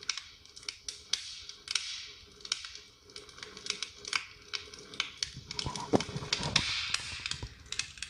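Irregular light clicks and taps with a few short rustles, the sound of small objects and packaging being handled.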